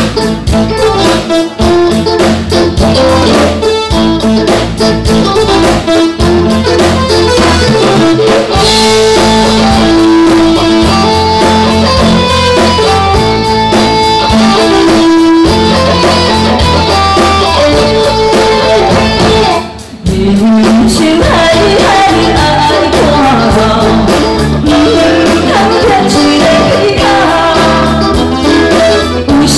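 Live band music from a stage, a song played with drums and other instruments, with singing over it. The music drops out briefly about twenty seconds in, then comes back in.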